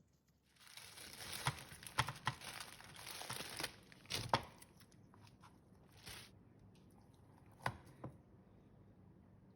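Crinkling, tearing sound of something being handled on a kitchen worktop for about three seconds, followed by a few sharp knocks.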